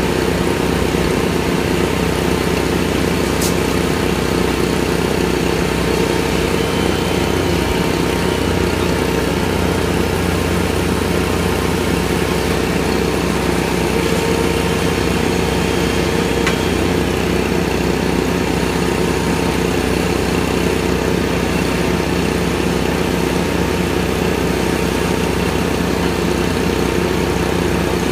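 The engine of a helical pier installation machine running steadily, with no change in speed, as the pier is driven into the ground.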